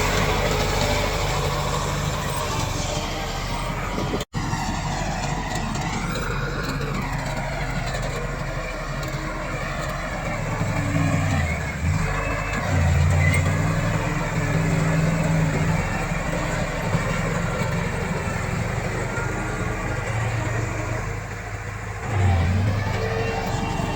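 Komatsu D68 crawler bulldozer's diesel engine running steadily, its pitch dipping and recovering a couple of times. There is a momentary dropout in the sound about four seconds in.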